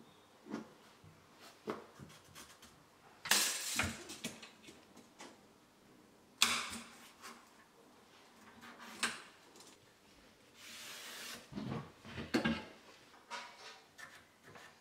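Scattered knocks, taps and scrapes of hand tools and a plywood sheet being handled and set down on bare wooden floorboards, with soft rustling of marking and measuring between them.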